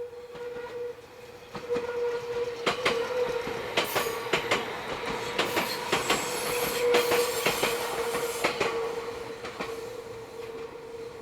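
Meitetsu train wheels squealing on a tight curve: a steady high-pitched tone held throughout, with a run of sharp clacks as the wheels pass over rail joints. It grows louder as the train goes by in the middle and fades near the end.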